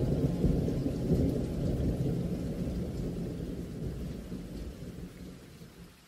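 Rolling thunder rumbling low under steady rain, dying away gradually over several seconds.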